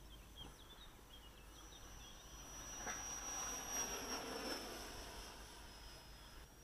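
A 64 mm, 12-blade electric ducted fan on a brushless motor, powering a radio-controlled Mirage jet, whining as the model flies past. About three seconds in it grows louder with a rushing of air, and the high whine drops slightly in pitch as it goes by.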